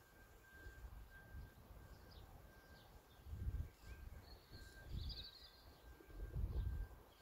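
Faint outdoor garden ambience: small birds chirping briefly about four to five seconds in, over low rumbles that swell twice.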